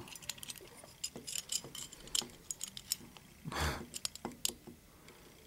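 Light metallic clicks and ticks of pick tools and the spring-loaded brass levers of an opened seven-lever safe lock being handled, the levers snapping back down under their springs when the tension slips. A brief louder rub comes a little past halfway.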